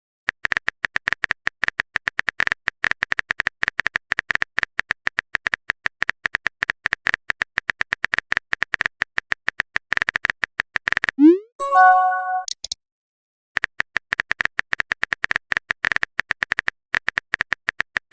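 Typing sound effect: rapid clicks like a phone keyboard being tapped. About eleven seconds in the clicks stop for a short rising blip and chime, like a message alert, and then the typing clicks start again.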